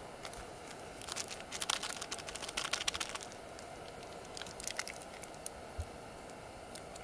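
Crinkling and crackling of plastic snack-bar wrappers being handled, a dense run of crackles about a second in lasting some two seconds, then a few more crackles a little later and a single soft knock near the end.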